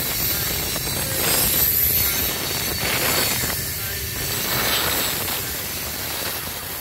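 Loaded coal hopper cars rolling past close by: a steady rumble of steel wheels on the rails, swelling a little about a second and a half in and easing off toward the end.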